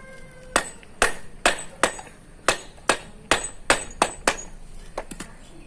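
Manual impact screwdriver, set to loosen, struck sharply on its back end with a block of wood about ten times, two to three blows a second, some with a brief metallic ring, followed by two lighter knocks near the end. The blows drive the bit round to break a tight screw loose.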